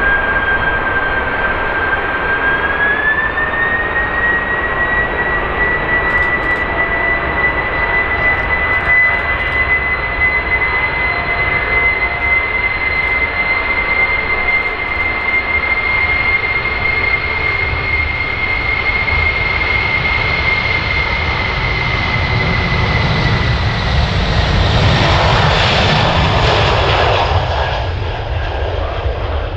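Boeing 747-400F freighter's four jet engines at takeoff thrust: a steady high fan whine that steps up in pitch about two to three seconds in and then holds over a constant roar. About twenty-five seconds in it builds to its loudest, a deep rumble with crackle, then eases off near the end.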